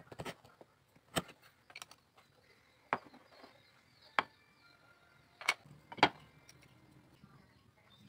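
A knife cutting thin bamboo strips on a wooden board makes a series of about seven sharp clicks and knocks at uneven intervals. The loudest comes about six seconds in.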